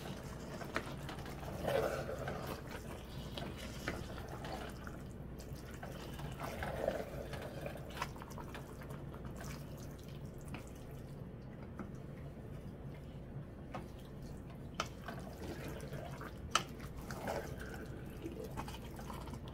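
Small drips and splashes of water with scattered light clicks, over a faint steady low hum.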